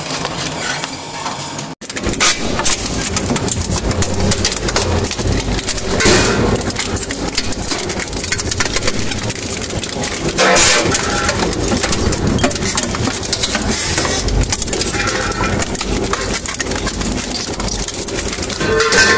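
Twin-shaft shredder running, its rotors of cutter discs turning with a steady low machine hum. Louder crunches come about every four to five seconds as scraps are caught between the blades. There is a brief gap in the sound about two seconds in.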